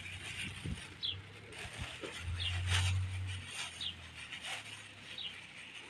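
A small bird chirping over and over, short high falling notes about once a second. About two seconds in comes a low rumble lasting roughly a second, the loudest sound here.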